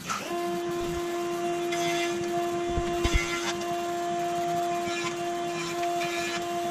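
An aerosol can of WD-40 hissing in several short sprays onto a bare cast-iron engine block. Under the sprays, a motor runs with a steady hum that starts just as the sound begins.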